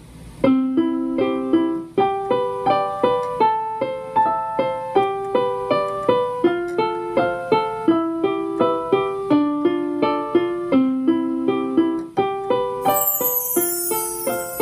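Instrumental piano or electric-keyboard music: a simple tune of evenly struck notes at about three a second, with a brief break about twelve seconds in.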